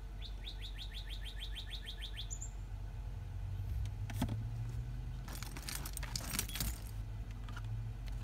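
A small bird sings a fast trill of about eight high chirps a second near the start. A few clicks follow, then about a second and a half of metallic jingling and rattling like keys being handled. A steady low hum runs underneath.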